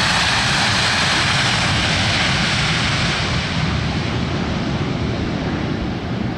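Boeing P-8 Poseidon's CFM56 turbofans at reverse thrust on the landing roll: a loud, steady rushing roar that slowly eases off after about three seconds.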